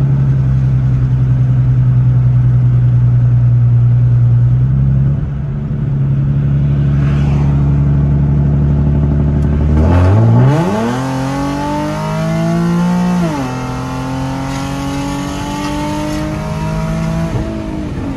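The straight-piped 3.7-litre V6 of a 2011 Infiniti M37x, with catless downpipes and the muffler and resonator deleted, heard from inside the cabin while driving. It holds a steady drone at cruise, then partway through the revs climb quickly under acceleration. The pitch drops suddenly twice as the transmission shifts up, then climbs again.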